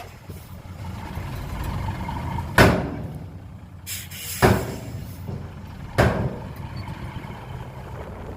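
Heavy diesel construction machinery running with a steady low rumble, broken by three loud sharp bangs roughly a second and a half apart, with a short hiss just before the second bang.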